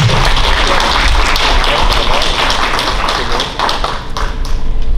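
Audience applause: many hands clapping steadily, easing off near the end.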